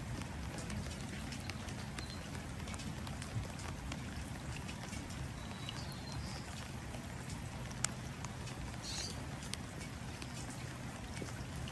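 Steady rain pattering, with individual drops tapping sharply into water. A bird chirps briefly a few times over it.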